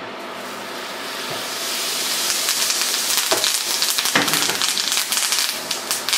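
Melted butter with fresh thyme sizzling in a hot frying pan as it is poured in. The hiss builds over the first couple of seconds into a steady crackle of popping bubbles as the butter foams.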